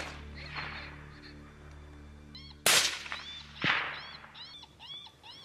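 Two sharp rifle-like cracks about a second apart, each ringing off briefly, over a repeated high, arching call sounding about three times a second.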